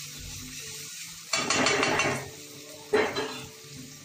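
Metal spoon stirring and scraping vegetables frying in a metal kadhai. There are two loud scrapes with sizzling, the first about a second long starting a little over a second in, the second shorter near the end.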